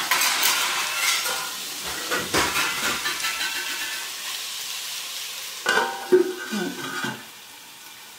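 Prawns sizzling in masala as a wooden spatula stirs and scrapes through them in the pot. About six seconds in, a steel plate is set on the pot as a lid with a ringing metal clatter, and the sizzling is muffled after that.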